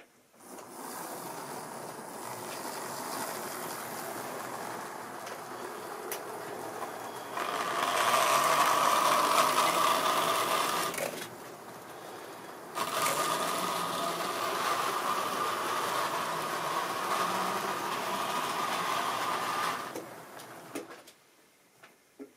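Tri-ang OO-gauge model diesel locomotive running along the track hauling a brake van: a steady electric-motor whirr and whine with wheel and track rattle. It starts about half a second in, grows louder about seven seconds in, dips briefly around eleven seconds, returns, then fades out near the end.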